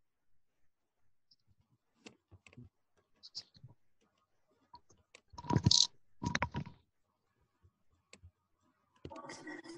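Scattered clicks and taps on a computer keyboard, with two louder noisy bursts about halfway through.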